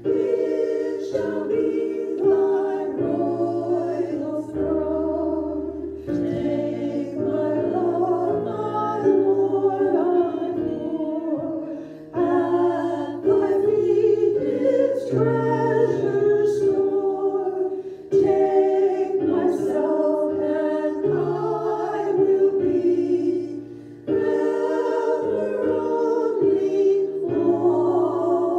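A small group of women singing a hymn into handheld microphones, with piano accompaniment holding sustained chords underneath. The singing comes in phrases, with brief dips between them about every six seconds.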